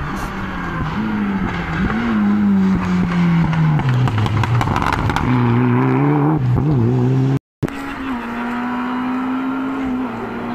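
Rally car engine at race pace on a tarmac stage: the engine note falls for a few seconds as the car slows for the corner, then jumps up and climbs hard as it accelerates past, with a spatter of crackles. After a short break about halfway through, a second rally car's engine is heard coming, its note holding fairly steady with small rises and falls.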